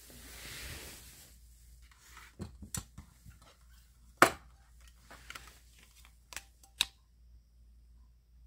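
Handling noise: a brief rustle, then a string of sharp clicks and knocks, one much louder about four seconds in and another near seven seconds.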